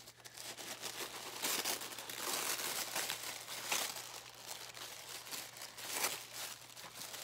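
Tissue paper in a gift box crinkling and rustling as it is unfolded and pushed aside by hand, with louder crackles about a second and a half in, near the middle and about six seconds in.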